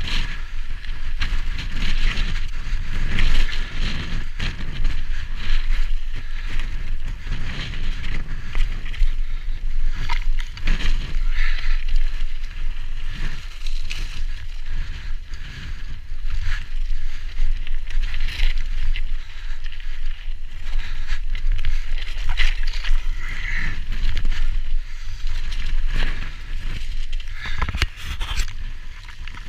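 Mountain bike rolling down rocky slabs and loose stone: tyres crunching and scraping over rock, the bike rattling with many short clicks over the bumps, and a steady low rumble of wind on the microphone.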